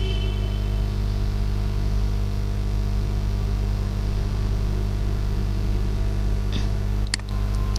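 Steady low electrical mains hum with hiss from the recording chain, with a short click about seven seconds in as a mouse button clicks a link.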